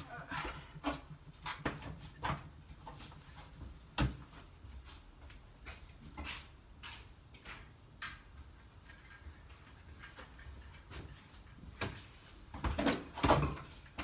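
Scattered knocks, clicks and rustling of wood and tools being handled, with a sharp knock about four seconds in and a cluster of louder knocks near the end.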